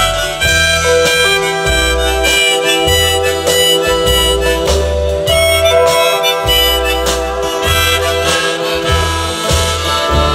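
Live band music: an instrumental passage with a sustained lead melody over upright bass notes about once a second, with guitar and keyboard.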